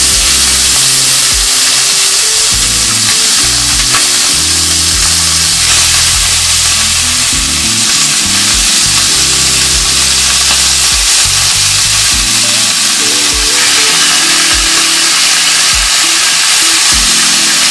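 Raw chicken pieces sizzling and frying in hot annatto oil in a stainless steel sauté pan, as more pieces are laid in and turned with tongs.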